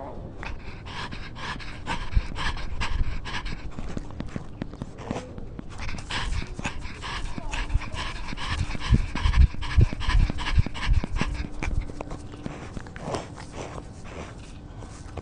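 Rapid, rhythmic panting breaths close to a cat-mounted camera as the cat walks, with rustling and low thumps from its movement and steps.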